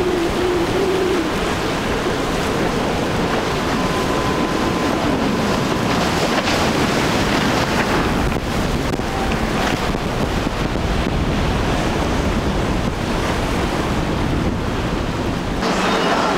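Wind buffeting the microphone over rough surf and the spray of boats running at speed through the inlet, with a boat engine's drone fading out about a second in.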